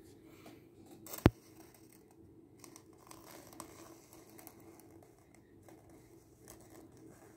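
Faint rustling and crackling of a cardboard toilet-roll tube being handled in front of a burning blue laser, with one sharp knock about a second in.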